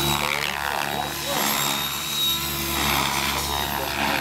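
Mikado Logo 600 radio-controlled helicopter flying aerobatics: a steady low rotor hum with a thin high whine, swelling and fading several times as it manoeuvres.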